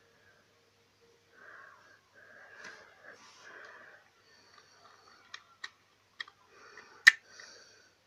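Plastic Rubik's cube pieces being handled and fitted back around the core: soft scraping and rubbing, then a few sharp clicks, the loudest about seven seconds in.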